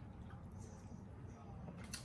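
Quiet eating sounds: soft wet mouth clicks and smacks, with one sharper click near the end, over a low steady hum.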